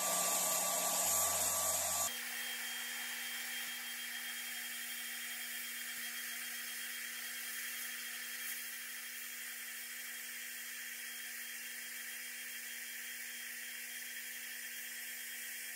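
Sandblasting gun blasting abrasive onto a rusty axe head inside a blast cabinet, stripping the rust to bare metal: a steady hiss that changes abruptly about two seconds in, with a steady low hum underneath.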